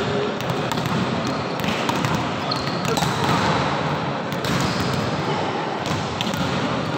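Volleyballs being spiked and slapping onto the court floor during a spiking warm-up, many sharp hits and bounces in irregular succession over a dense background hubbub in a large indoor sports hall.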